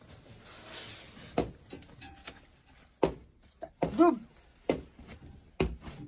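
Scattered knocks and thuds, with a short rising-and-falling call about four seconds in.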